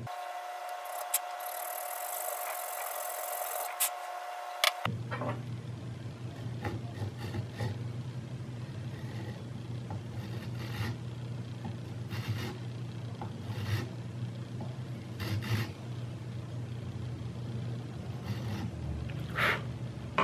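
A small hand file rasping back and forth across the plastic top rail of an air pistol, cutting a shallow groove. The strokes come as short scrapes every second or two. About five seconds in, a steady low hum comes in under them.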